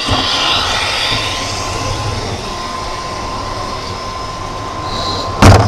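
Radio-controlled model semi truck driving, its drive running with a steady whine. A sudden loud bump near the end.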